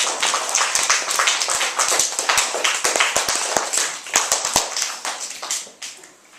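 Applause from a small group, many separate hand claps at once, dying away near the end.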